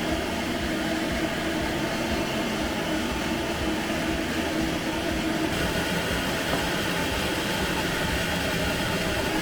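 High-powered pet blow dryer blowing air steadily, a continuous even rush with a faint steady hum.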